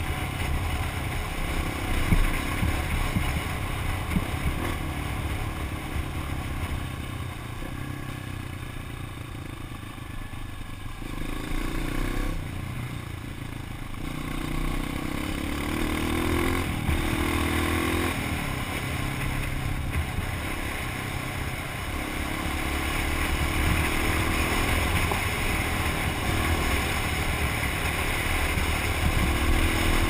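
Dirt bike engine running while riding along, the revs climbing several times as it accelerates.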